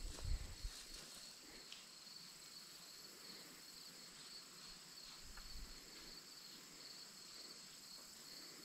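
Faint insect chorus: a steady, pulsing high-pitched chirping with a thin, steady higher whine above it. A few soft low thumps at the very start.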